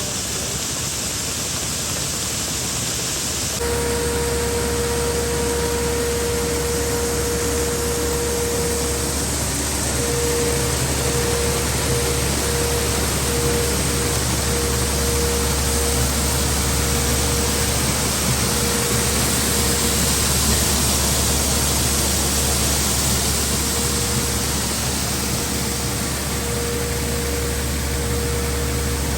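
Farm machinery running steadily: a loud, even mechanical noise with a low hum. About three and a half seconds in the sound changes abruptly, and a faint whine then comes and goes.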